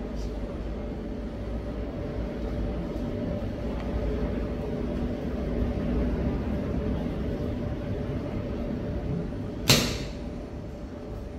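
Steady low background rumble with a faint hum, broken near the end by one sharp knock, the loudest sound.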